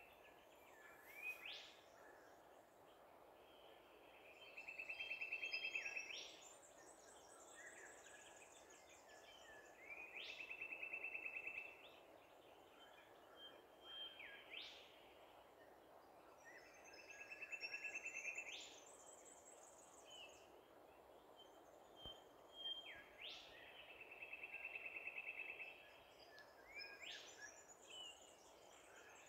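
Faint wildlife calls over a steady low hiss: a rapid trill comes four times, about every six to seven seconds, with short rising whistles and higher chirps between.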